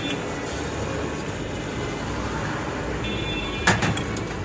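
Steady background noise of an open-air street stall, with a faint ringing about three seconds in and one short clink near the end as bottles and steel containers are handled.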